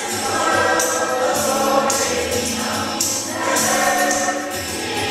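A church choir singing a gospel-style song with instrumental accompaniment and percussion, the percussion hits recurring about once a second.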